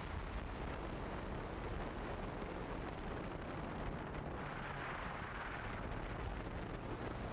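Steady wind buffeting the microphone of a moving Honda CB150F motorcycle, a deep rumbling rush over its single-cylinder engine running at road speed.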